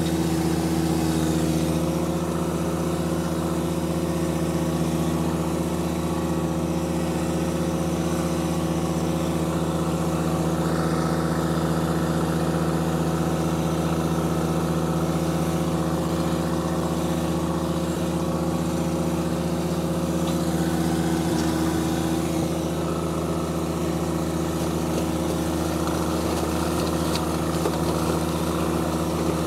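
John Deere 1025R sub-compact tractor's three-cylinder diesel engine running at a steady working speed, its flail mower turning as it chops through dry corn stalks.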